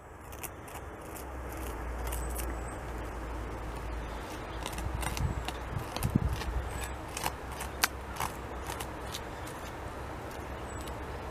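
North American beaver gnawing and chewing bark off a large tree trunk: irregular crunching and snapping clicks, thickest around the middle.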